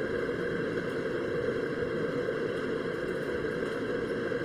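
Steady background noise, strongest at the low end, with no distinct events.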